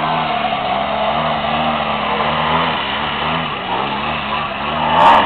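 Engine of a quarter-scale radio-controlled aerobatic airplane running as it hovers, its pitch wavering up and down with the throttle changes that hold the hover. It swells loudest just before the end.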